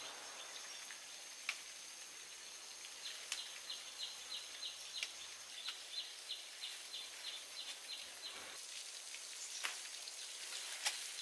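Outdoor ambience of high, rhythmic chirping in short runs of about five chirps a second over a steady high whine, with a few sharp snaps and soft rustles as leaves are plucked by hand.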